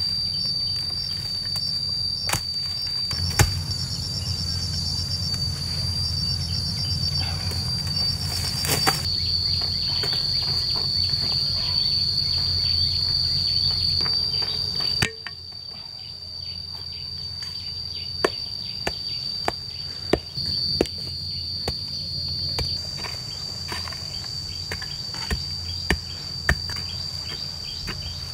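Insects keep up a steady high-pitched drone with pulsing chirps. Over it come scattered sharp knocks, the blows of a pick biting into dry termite-mound clay, most of them in the second half.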